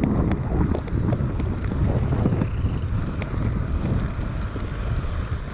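Wind buffeting the microphone while rollerblading, a steady heavy rumble over the roll of inline skate wheels on pavement, with scattered light clicks.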